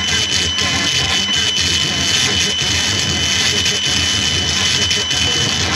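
Harsh noise music: a dense, steady wall of distorted noise with a heavy low end and a thin, steady high whine.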